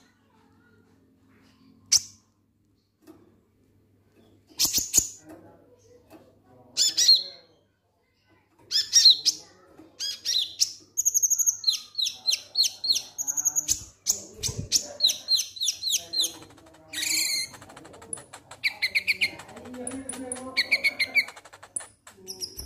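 Purple-throated sunbird (kolibri ninja, 'konin') calling: a few sharp single chips in the first seconds, then from about nine seconds in a fast, unbroken run of high, clipped chirps, its 'ngek ngek' call.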